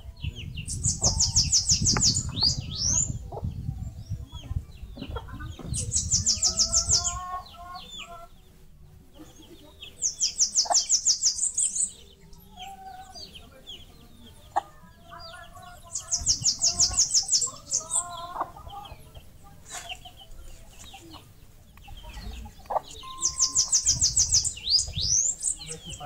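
Bananaquit (cambacica) singing: a fast, high-pitched, sibilant trill about a second and a half long, repeated five times at intervals of five to six seconds. Lower chirps and clucking calls sound between the songs.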